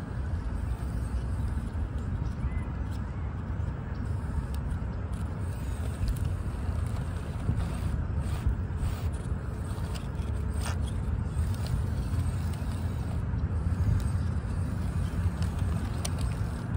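A 1/24-scale RC rock crawler (Injora buggy on an SCX24 chassis) creeping over tree roots, its tyres scraping and clicking on bark and dry leaves, over a steady low rumble.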